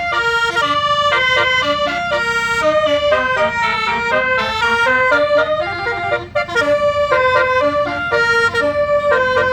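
Bus's telolet basuri musical horn playing a melody of quick stepped notes, breaking off briefly about six seconds in, over a low rumble.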